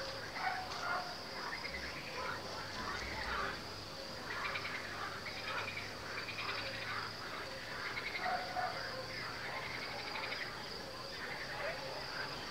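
Frogs calling in short calls repeated every half second to a second, over the steady high-pitched trill of crickets.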